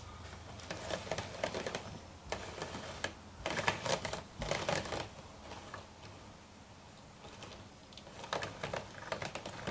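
Bursts of rapid clicking and rattling from a homemade drum carder as its drum is turned by the hand crank and a roller's side alignment is adjusted at the axle: three main bursts with quieter gaps between.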